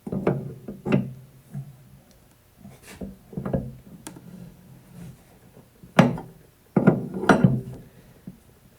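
A series of irregular knocks and clunks from tools and parts being handled and set down on a workbench, loudest about six seconds in and again in a cluster about seven seconds in.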